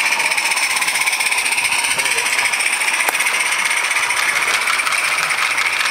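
Small 16mm-scale garden-railway locomotive hauling its train close by, making a steady rapid mechanical running noise whose pitch dips, rises and falls again as it passes.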